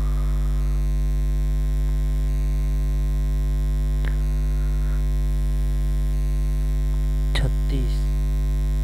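Steady electrical mains hum with a low buzz. A brief click comes about four seconds in, and short faint sounds a little past seven seconds.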